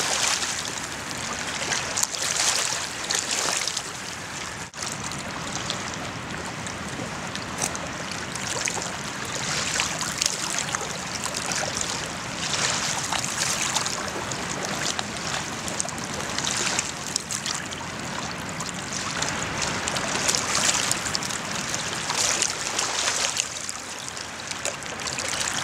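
Water washing against a rocky shore, a steady rush that swells and eases every second or two.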